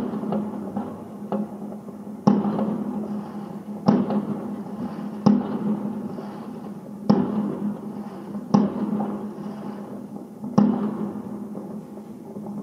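Aerial fireworks going off: a series of sharp bangs, roughly one every one and a half to two seconds, each followed by a long rolling echo.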